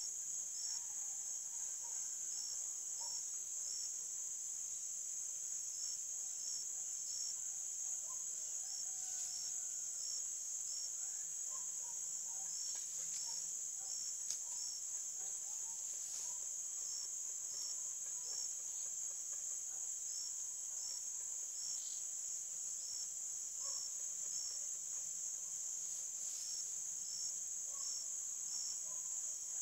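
Steady high-pitched buzzing of insects in grass, with faint scattered chirps and a faint knock about halfway through.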